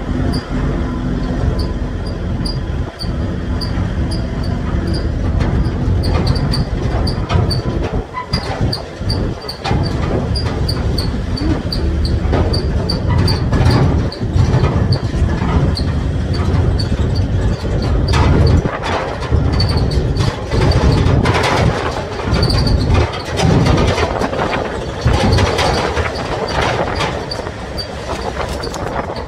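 Engine and road noise of an open-backed vehicle on the move: a steady rumble with uneven noise swelling and dropping, and a faint high tick repeating a few times a second.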